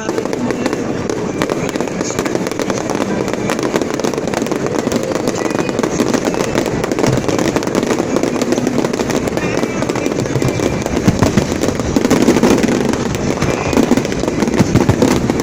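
Fireworks display going off: a dense, continuous crackle of many small bangs and pops, a little louder about two thirds of the way through.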